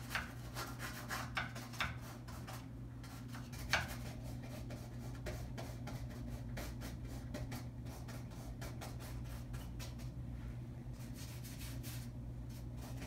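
Paintbrush working paint onto a stretched canvas: soft, irregular scratchy rubbing strokes, with one sharper stroke about four seconds in.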